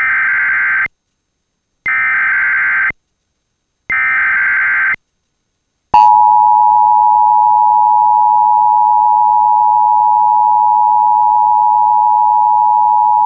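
Emergency Alert System activation: three roughly one-second bursts of buzzy SAME header data, a second apart. About six seconds in comes the loud, steady two-tone EAS attention signal, which holds on. It signals that a tornado warning broadcast is about to follow.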